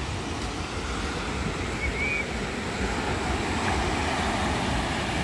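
Ocean surf breaking on the beach, a steady wash of waves, with wind rumbling on the microphone.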